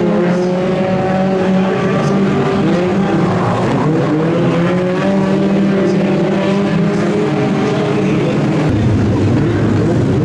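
Several stock car engines running together, their pitches gliding up and down as they rev, with a few rising sweeps a few seconds in. The sound changes abruptly near the end.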